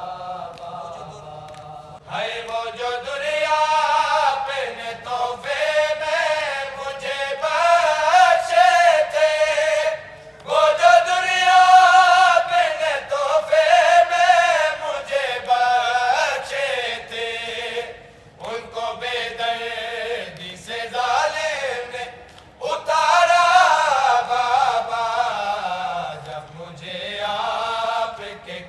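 Men chanting an Urdu noha, a Shia lamentation recitation, voices only, in long wavering melodic phrases with brief pauses for breath between them.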